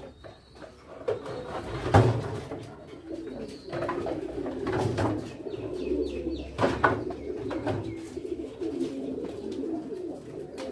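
Domestic pigeons cooing steadily. Several sharp knocks and clatters cut across the cooing, the loudest about two seconds in.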